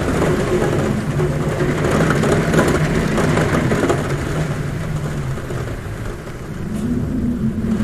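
Heavy rain drumming on a roof, with wind humming at a window as a low tone that drops in pitch, fades after the middle and comes back higher near the end.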